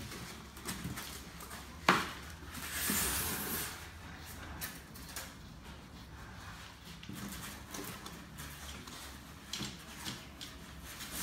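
Handling noise from assembling a steel table-tennis table frame: a sharp metallic knock about two seconds in, then a second or so of rustling and scattered light clicks and taps as the end pieces are worked on.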